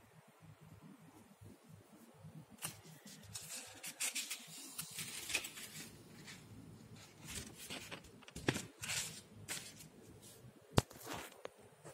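Paper book pages being turned and handled, with paper rustling and crackling in a run of crisp bursts from about two and a half seconds in, and one sharp snap near the end.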